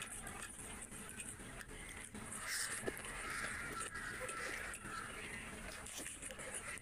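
Close, wet eating sounds: a bare hand squishing and mixing rice and curry on a plate, then chewing and lip smacks, as many short clicks and smacks.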